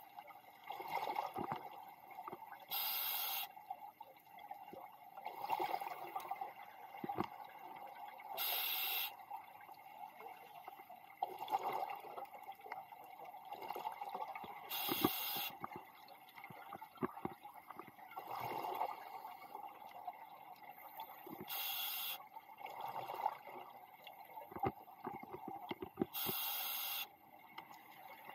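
Scuba diver breathing underwater through a regulator: five short hisses of air drawn through the demand valve, about six seconds apart, each followed by the bubbling gurgle of the exhale.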